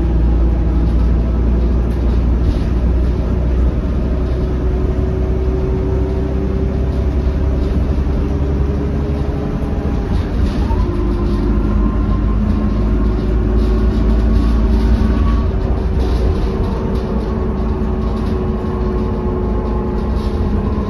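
Inside a Volvo B12BLE bus under way: steady drone of the rear-mounted diesel engine and drivetrain with a heavy low rumble from the road. The engine note changes about halfway through.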